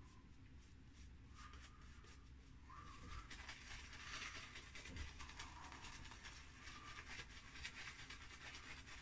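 Faint scratchy swishing of a badger-hair shaving brush working up lather, growing stronger about three seconds in.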